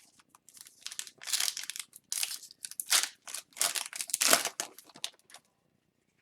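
A trading-card pack's wrapper being torn open and crinkled by hand, a run of rustling, crackling bursts that stops about five seconds in.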